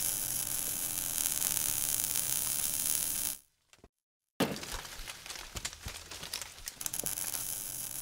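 Sound effect for an animated logo sting: a steady hiss with a faint crackle for about three and a half seconds, then it cuts off. After a short silence, a sudden hit comes about four and a half seconds in, followed by scattered crackles and clicks that slowly fade.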